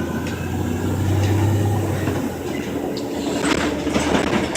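Orion VII city bus engine running with road noise, heard from inside the moving bus; the low drone swells about a second in. A brief high-pitched noise comes near the end.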